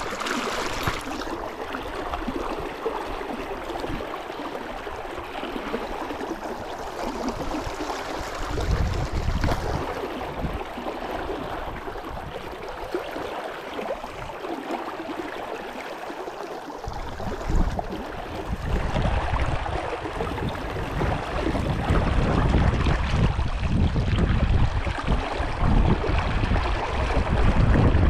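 Steady rush of a brook's flowing water. Low wind rumble on the microphone comes in a gust about a third of the way in and builds again through the second half.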